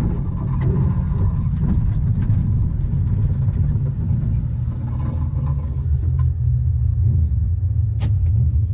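A car engine running steadily with a low rumble, with a few sharp clicks on top, the loudest one near the end.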